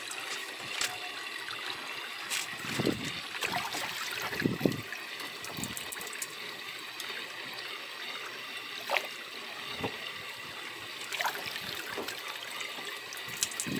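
Water trickling and splashing in a fish tank as a landing net is worked through it, with a few louder splashes and scattered small knocks.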